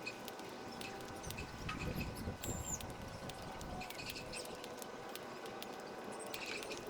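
Birds at a feeding spot: short high chirps and squeaks over a scatter of sharp clicks and taps.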